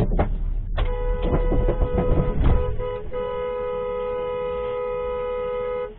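A car horn held down in one long steady blast for about five seconds, briefly broken around the middle and cutting off suddenly near the end. It starts over several loud knocks and rumbling in the first second or two.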